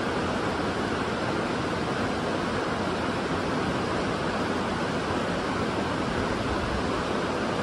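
Whitewater river rapids rushing in a steady, unbroken wash of water noise.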